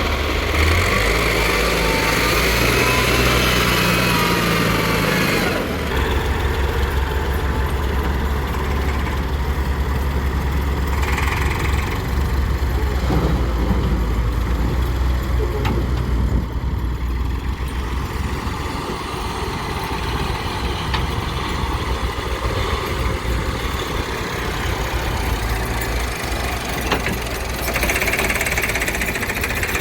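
Diesel engine of a JCB backhoe loader running while it works, its pitch climbing over the first five seconds, then dropping to a steadier, lower run. It briefly rises again about eleven seconds in and near the end.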